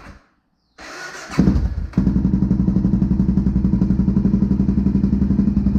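Honda XR650L single-cylinder four-stroke, cranked by its electric starter with no choke. It catches about two seconds in and settles into a steady, even idle with a deep thump through a Big Gun EVO R slip-on muffler that has its spark arrestor removed.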